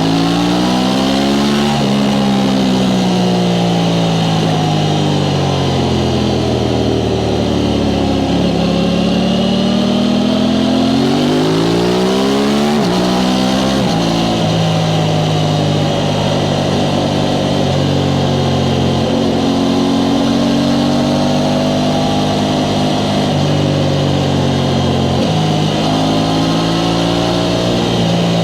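Aprilia Tuono 660 Factory's parallel-twin engine through its stock exhaust, under way. The revs fall away over several seconds, climb again, and drop sharply at a gear change about 13 seconds in. After that the engine holds a fairly steady note with small changes in revs.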